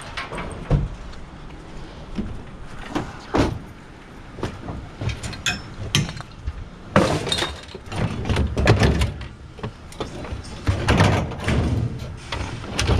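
Scrap metal being handled: a run of knocks, clanks and rattles, with the busiest clattering in the second half.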